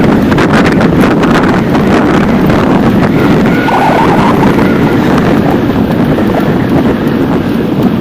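Loud, steady wind buffeting the microphone of a bicycle-mounted or rider-worn camera while cycling, heard as a constant low rumble.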